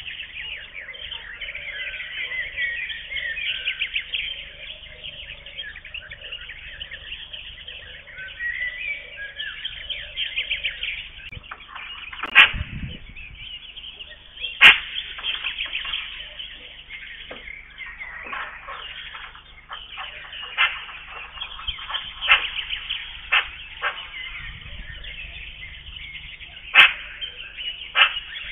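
Many small birds singing and chirping together in a busy morning chorus. A few short, sharp sounds stand out louder than the birdsong, two of them close together about halfway through and another near the end.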